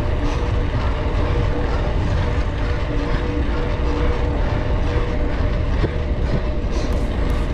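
Wind buffeting a GoPro action camera's microphone as a mountain bike rides into a strong headwind: a loud, steady low rumble with a faint steady hum beneath it.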